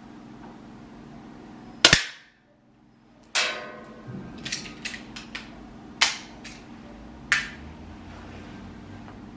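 A single sharp shot from an APS target air pistol just under two seconds in. It is followed by a run of sharp clicks and clacks of the pistol being handled and reloaded, the loudest about three and a half, six and seven and a half seconds in.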